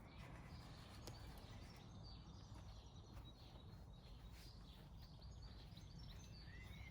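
Faint chirps of small garden birds, scattered and brief, over a low steady outdoor rumble.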